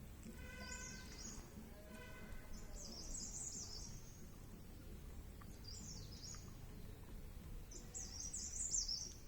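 A songbird singing short, high, warbled phrases about every two seconds over steady low background noise. Two brief pitched calls sound in the first two seconds.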